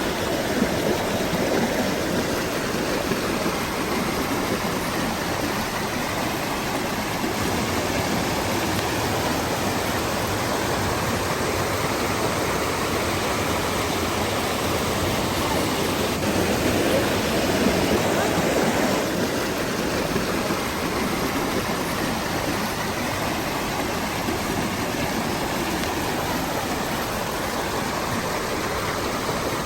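Waterfall and stream water rushing and splashing over rocks in a continuous roar-free steady wash, swelling a little about two-thirds of the way through.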